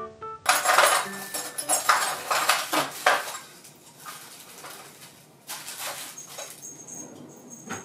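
Dishes and cutlery clattering as tableware is handled on a wooden dining table: a dense run of clinks and knocks in the first few seconds, then lighter, scattered ones.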